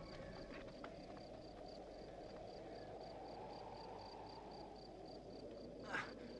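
Faint outdoor film ambience: insects chirping in a regular, high pulse, about four times a second, over a low steady hiss, with a short breathy sound near the end.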